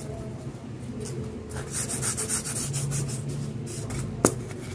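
Polystyrene foam cutout pieces being handled and rubbed, giving a run of quick scratchy strokes in the middle, then a sharp click near the end.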